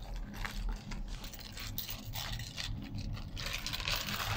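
Rustling and scraping of paper earring cards and plastic packets being handled and shuffled, in a quick irregular run of short scratchy sounds.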